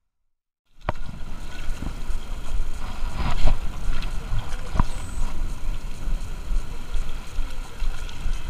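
Wind buffeting an action camera's microphone over small waves lapping at the rocks, starting about a second in, with a few sharp handling clicks from the rod and spinning reel.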